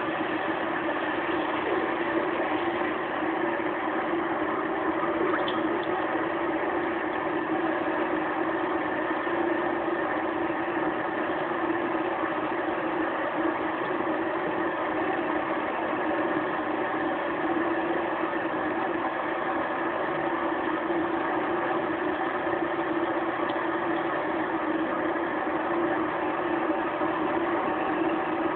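Steady machine hum with several fixed tones and a low hiss, unchanging throughout.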